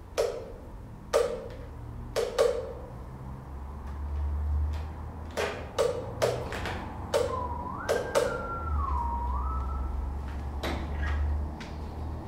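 A dozen or so sharp plastic clicks and knocks as an electric kettle is handled on a tabletop, with a low rumble in two stretches. Partway through, a single high tone rises and falls for a couple of seconds.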